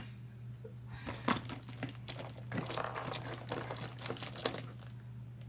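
Crinkling and light clicking as hands rummage through a box of used toys, with irregular rustles and small knocks of toys and packaging.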